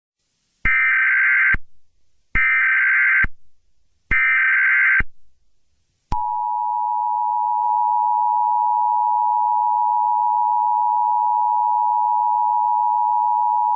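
Emergency Alert System tones. Three short bursts of SAME header data, warbling digital chirps about a second each, come first. About six seconds in, the EAS attention signal starts: a steady, loud two-tone beep.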